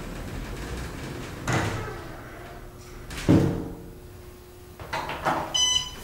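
Otis Series 5 elevator doors sliding and shutting, with two heavy knocks; the second, about three seconds in, is the loudest. Near the end come a few clicks and a short electronic beep as the floor 1 car button is pressed and lights.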